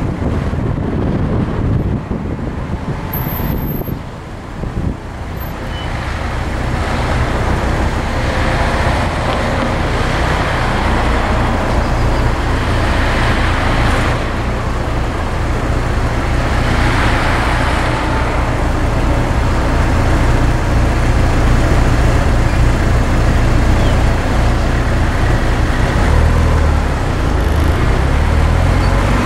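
Porsche 944's four-cylinder engine and road noise heard from inside the cabin while driving slowly in town traffic. The engine note dips about four seconds in, then gradually builds and holds.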